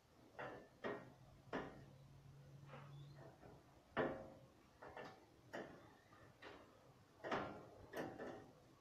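Faint irregular knocks and clatters, about a dozen, each with a short ringing tail, the loudest about four seconds in. A low steady hum sounds from about one to three seconds in.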